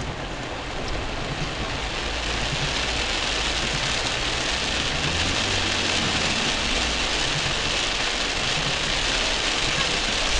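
Heavy rain drumming on a car's roof and windscreen, heard from inside the cabin over the low hum of the car's engine; the rain grows louder about two seconds in.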